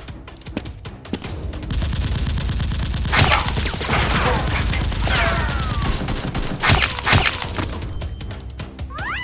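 Rapid, dense gunfire sound effects, with a few louder single cracks and several falling whistles, over background music.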